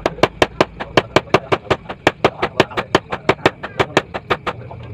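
Hand hammer striking red-hot bearing steel on an anvil, forging a knife blank: a quick, even run of ringing metal blows, about five a second.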